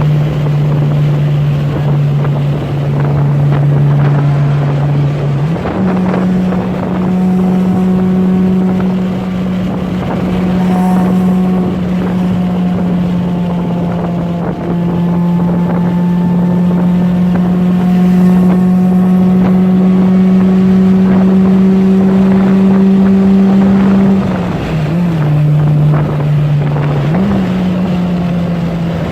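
Honda Civic's D16Y8 four-cylinder engine, fitted with an aftermarket cold air intake, droning steadily under way, with wind noise. Its pitch steps up about six seconds in, creeps slowly higher, drops near the end and climbs again briefly.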